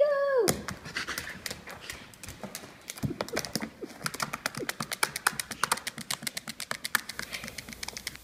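A dog panting quickly while it noses and paws at a tablet screen, with a long run of sharp clicks that quicken to about six a second partway through. A short falling sound at the very start.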